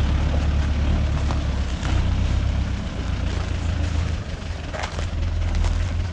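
Farm tractor engine running steadily, a low even engine hum.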